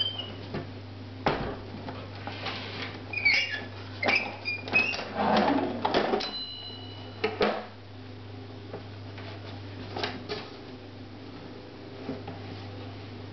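A portable typewriter's hard case being handled on a metal typewriter stand: its lid opened and lifted off, giving a string of knocks, clicks and rattles, with a short metallic ring about six seconds in.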